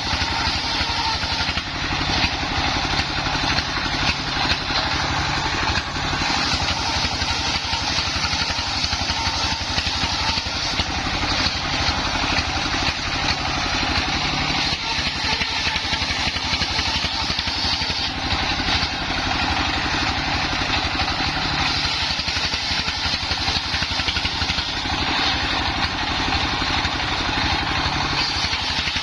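Engine-driven mobile circular-saw sawmill running steadily, its engine beating evenly throughout.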